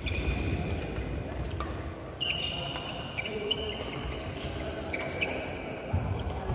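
Badminton doubles rally: athletic shoes squeak in short, high chirps many times on the wooden court floor as the players lunge and push off. Sharp clicks of rackets striking the shuttlecock come every second or two.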